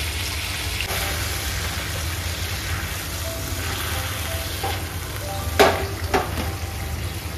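Tempering of oil, water, slit green chillies, sugar and lemon juice bubbling and sizzling in a frying pan on a gas burner, over a steady low hum. Two sharp knocks sound late on, about half a second apart.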